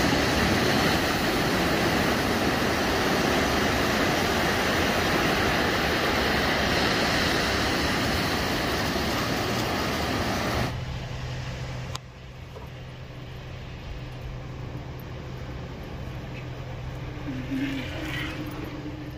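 Small surf waves washing up the sand, heard as a loud rushing noise with wind on the microphone. About ten seconds in it cuts off abruptly to a much quieter steady low hum, with a single click a second later.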